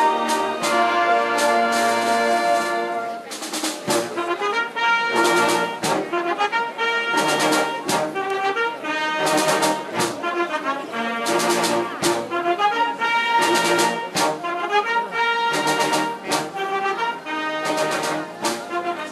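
Slow brass music with held chords, joined from about three seconds in by drum strokes that fall in pairs roughly every two seconds, like a slow processional march.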